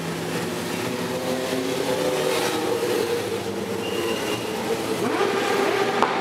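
Motorcycles of a large group ride past one after another at low speed, their engines overlapping in a steady mix of tones. Each engine note glides in pitch as a bike goes by, most noticeably near the end.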